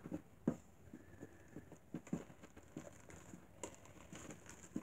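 Plastic spatula stirring fluffy glue-and-shaving-cream slime in a stainless steel bowl: faint, irregular soft squishing strokes with light taps against the bowl, a few times a second.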